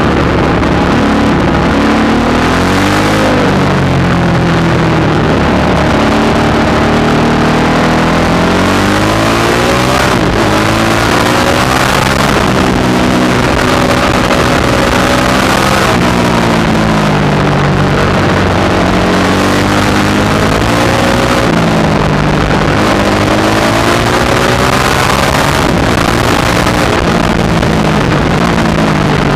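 Supermoto motorcycle engine heard from on board, its pitch repeatedly climbing under acceleration and dropping back off the throttle into corners, under constant wind rush on the microphone.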